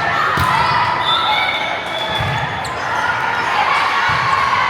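Indoor volleyball game in a gym: several players' and spectators' voices calling and chattering at once, a few dull thuds of the ball or feet on the court, and sharp sneaker squeaks on the floor.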